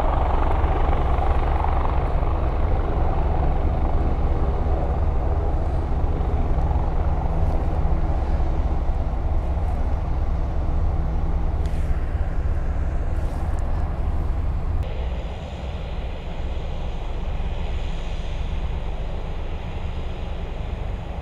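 Helicopter running with a steady heavy rotor and turbine sound; it drops somewhat quieter and changes tone about fifteen seconds in.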